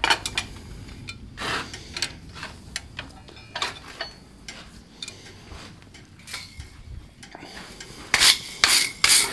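Light clinks and knocks of steel blacksmith tools being handled. Near the end come about three quick scratchy strokes of a wire brush scrubbing scale off the hot, freshly twisted iron bar held in the vise.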